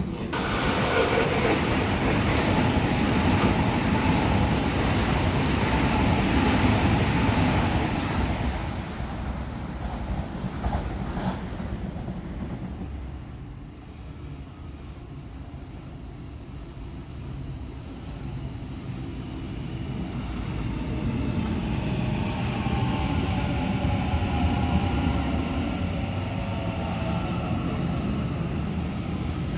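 Sydney Trains Waratah electric trains. One rumbles past loudly for the first eight seconds or so, then another runs into the platform with its traction motors whining as it slows.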